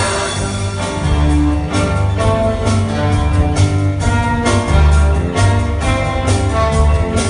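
Live orchestra playing an instrumental passage, with deep bass notes under sustained melody lines and a steady pulse of note attacks about twice a second.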